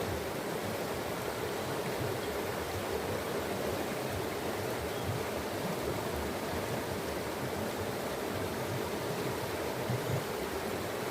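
Water running in a steady, even rush, with no birdsong standing out.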